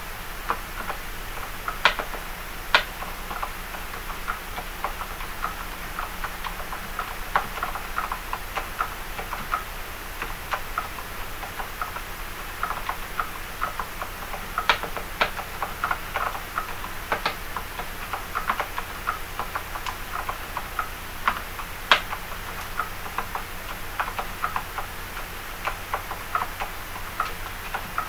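Typing on a mechanical keyboard with lubed silent red switches fitted with light springs (20 g actuation, 25 g bottom-out): an irregular patter of soft, muted keystrokes, several a second, with a few louder strokes.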